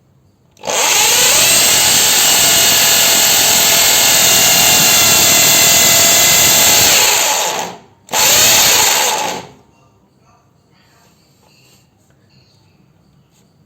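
Black & Decker 550 W hammer drill switched on and run loud and steady for about seven seconds, its pitch rising as it spins up and falling as it winds down. A second short burst of about a second and a half follows.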